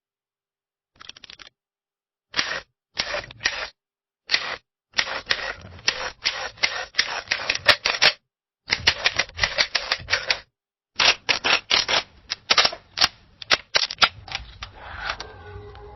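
Camera shutter clicking in rapid bursts of several clicks a second, with short pauses between the bursts. Near the end the clicking stops and a faint hum with steady tones remains.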